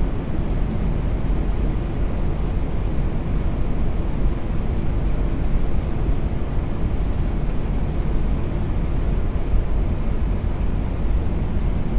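Steady rumble and rush of airflow and engines on an Airbus A380 flight deck on final approach, gear down and flaps full.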